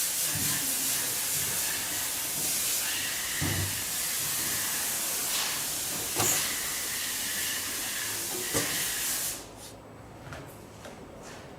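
A steady, loud hiss that stops abruptly about nine and a half seconds in, with a few short knocks along the way.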